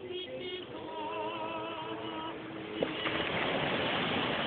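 Voices singing a hymn of the Orthodox Theophany water blessing, with wavering held notes. About three seconds in, a loud rush of surf washing ashore takes over.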